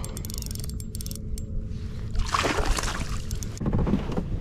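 A hooked bass splashing at the surface beside a kayak as it is brought in to be landed, with one splash a little past the middle and another near the end, over a steady low wind rumble on the microphone.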